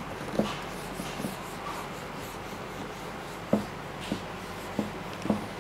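Marker pen writing on a whiteboard: light rubbing strokes with about five short taps as the tip strikes the board.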